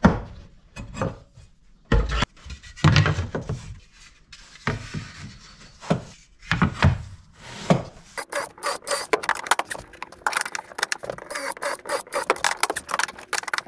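Mahogany boards knocked and slid about on a wooden workbench. From about eight seconds in, a cordless drill bores pilot holes into the Sapele mahogany boards with a rapid, dense crackle.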